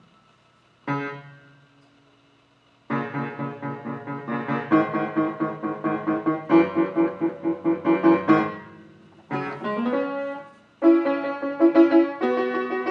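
Keyboard with a piano sound being played: a single note about a second in, then from about three seconds a quick run of repeated notes and chords, pausing twice briefly before carrying on.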